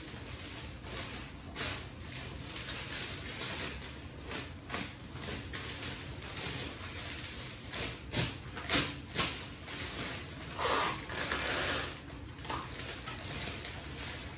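Black paper wrapping of a large rose bouquet rustling and crinkling as it is handled, in irregular bursts, loudest from about eight seconds in and longest a little after ten seconds, over a steady low hum.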